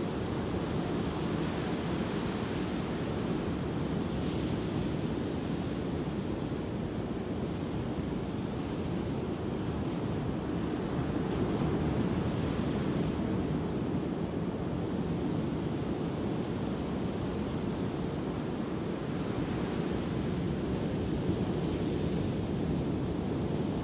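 Ocean surf breaking on a sandy beach: a steady wash of whitewater, swelling a little in hiss three times as waves break, about ten seconds apart.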